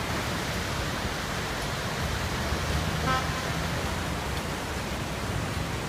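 Steady rushing of the Rímac river in flood, its muddy water running high and fast after heavy rains upstream. A brief vehicle horn toot sounds about three seconds in.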